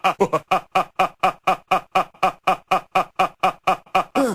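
A man's cartoon voice giving a short laugh syllable, looped in a rapid stutter edit of about six repeats a second.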